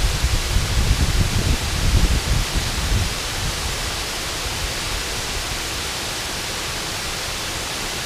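Steady rushing hiss of a waterfall pouring over a low stone dam onto rocks. An uneven low rumble sits under it for the first three seconds, then dies away and leaves only the even rush.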